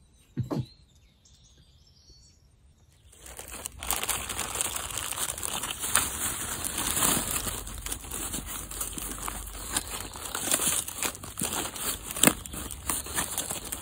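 Black plastic sheeting and a plastic bag crinkling and rustling as hands rummage through them. The sound starts suddenly about three seconds in, after a quiet start, and is a dense crackle with sharp loud crinkles.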